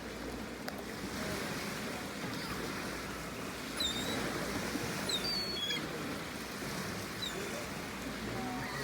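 Seagulls giving a few short, high calls over a steady rushing background noise.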